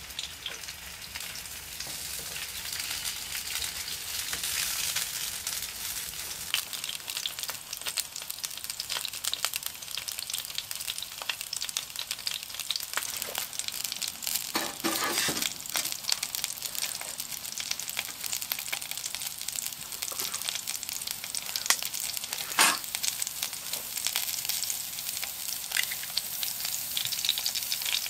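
Sausages frying in oil in a pan on a wood-burning tent stove: a steady high sizzle with frequent spits and crackles. A single sharp knock comes about two-thirds of the way in.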